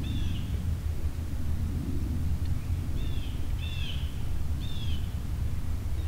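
Four short, high, downward-slurred chirps from a small songbird, one near the start and three close together in the middle, over a steady low rumble.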